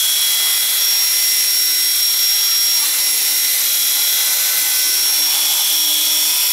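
Radio-controlled model helicopter hovering low: a steady high-pitched whine of its motor and spinning rotor, with a hiss of rotor wash.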